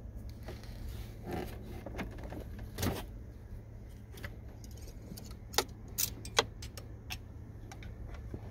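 Oil dipstick being pulled from its tube in a 2009–2014 Nissan Murano's engine bay: light scraping and handling noises, then three sharp clicks in quick succession a little past the middle, over a steady low rumble.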